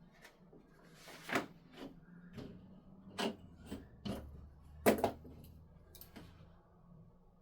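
A string of irregular light knocks and clicks, about nine in all, the loudest a sharp double knock about five seconds in, over a faint low hum.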